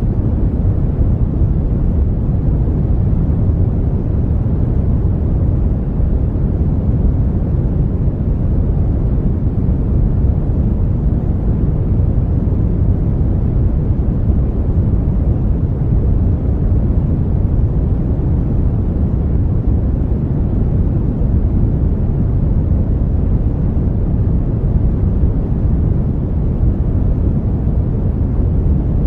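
Brown noise: a steady, even rumbling hiss, heavy in the low end and thin in the highs, with no changes.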